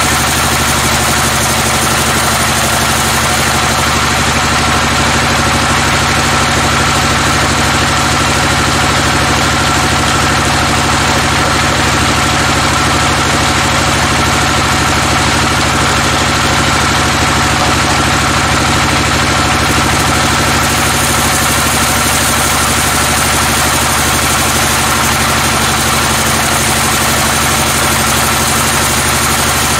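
Band sawmill running, its blade ripping steadily through a log lengthwise. The machine's drive hums under an even cutting hiss.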